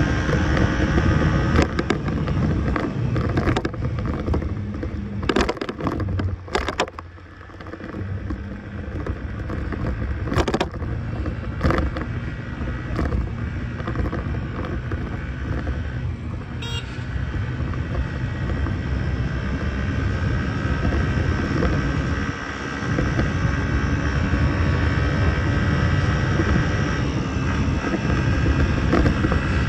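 Arora motor scooter being ridden through traffic, its engine running under a dense low rumble of riding noise. There are a few sharp knocks in the first dozen seconds, and the sound drops briefly about seven seconds in.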